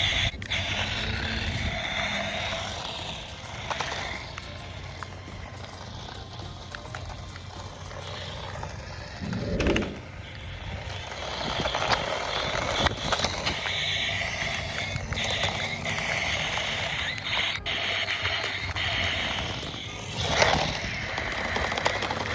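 Toy-grade remote control car tank driving over hard ground, its small electric motor whining and its plastic wheels rolling, with a couple of louder bumps about ten seconds in and near the end.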